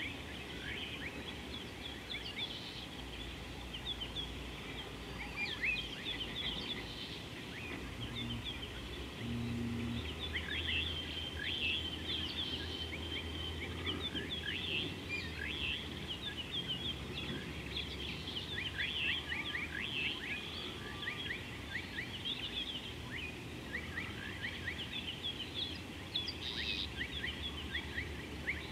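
A chorus of many birds calling at once, a dense, continuous scatter of short, quick, falling high-pitched notes, over a low steady hum.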